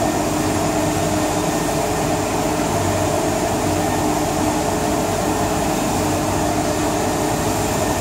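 Cyclone-filter industrial vacuum cleaner running steadily: a constant rush of air with a steady hum under it.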